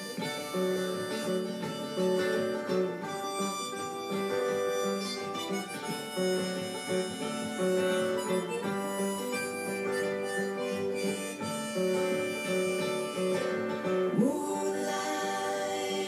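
Live acoustic band music: strummed acoustic guitars with a harmonica holding long chords over them, heard through a television's speaker.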